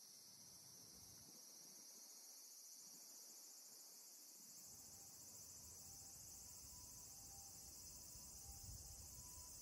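Faint, steady high-pitched chorus of insects chirping, with a low rumble coming in about halfway through.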